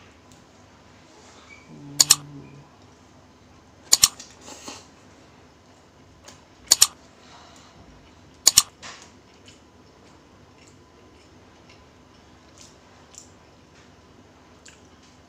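A person eating at close range: four sharp double clicks, roughly two seconds apart, with faint small chewing and mouth ticks between them. A short low hum comes about two seconds in.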